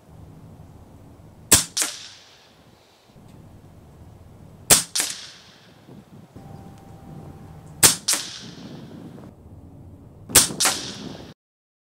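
RTI Arms Priest 2 pre-charged pneumatic air rifle firing four shots about three seconds apart. Each report is followed a moment later by a second sharp crack.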